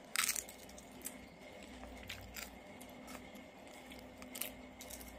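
A boy biting and chewing a snack close to the microphone: a few scattered short crunches and clicks, the loudest just after the start, over a low steady room hum.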